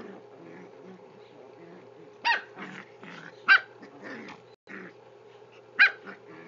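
Two small dogs play-fighting: low growling throughout, broken by three short, sharp, high barks about two seconds in, a second later, and near the end.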